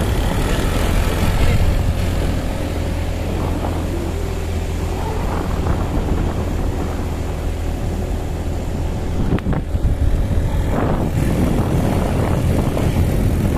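Steady wind rush on the microphone over the running engine of a Honda Genio automatic scooter, heard while riding it.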